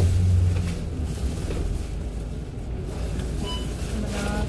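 Low, steady rumble of city traffic and a nearby bus engine, heavier in the first second and then easing, with a couple of brief higher tones near the end.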